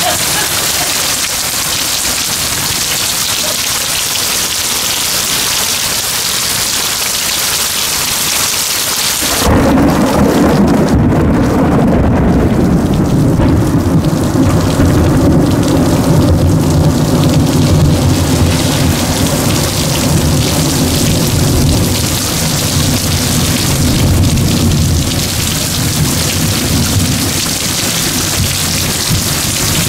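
Heavy rain pours steadily. About nine seconds in, thunder breaks suddenly into a long, deep rolling rumble that goes on for well over fifteen seconds and dies away near the end.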